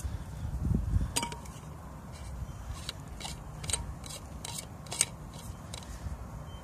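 Wind buffeting the microphone with a low rumble, gusting about a second in, over a scatter of light, sharp clicks and clinks from a pan and bowls being handled.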